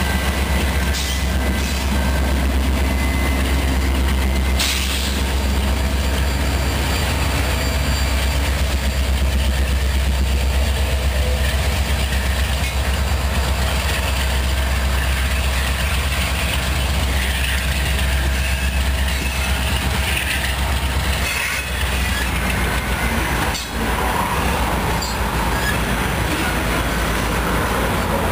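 Norfolk Southern freight train rolling past at close range: the last diesel locomotive goes by at the start, then loaded hopper cars follow, their steel wheels rumbling and clacking over the rails in a steady, loud stream of noise.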